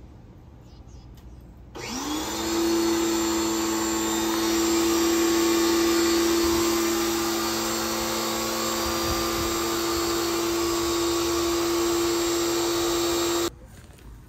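1800 PSI electric pressure washer starts about two seconds in, its motor and pump rising quickly to speed, then running steadily with a hum under the hiss of water jetting from a rotating sewer jetter nozzle. It cuts off suddenly near the end.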